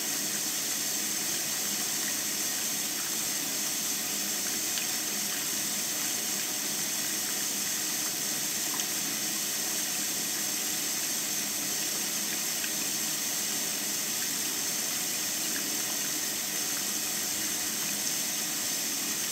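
Water pouring down the spillway of a Lego model dam: a steady, hissy rush of splashing water with a few faint ticks.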